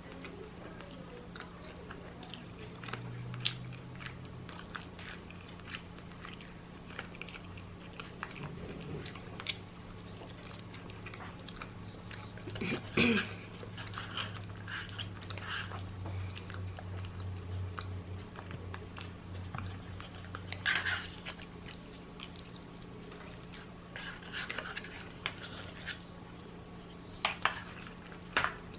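A person chewing and biting food close to the microphone, with irregular wet mouth clicks throughout and a louder patch about halfway through. A steady low hum runs underneath.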